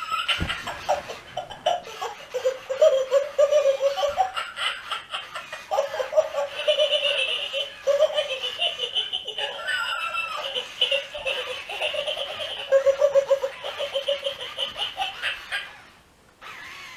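Plush laughing-dog toy playing its recorded belly laugh: a long run of rapid, hearty laughing that cuts off near the end.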